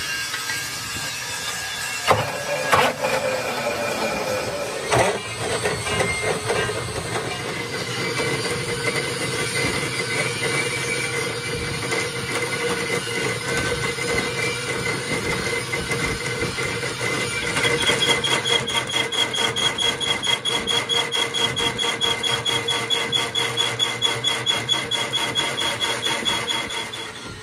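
Metal lathe cutting a heavy steel truck wheel-rim plate, the tool scraping with a steady squeal as it peels off curled chips. A few sharp knocks come in the first few seconds, and about two-thirds of the way through the cut takes on a rapid pulsing rhythm.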